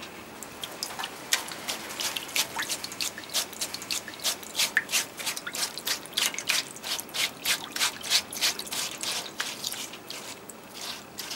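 Bristle brush scrubbing wet cloth in a shallow tray of water: an irregular run of short, wet scrubbing strokes, several a second, starting about a second in. The brushing washes the last of the rice-paste resist out of the Yuzen-dyed cloth.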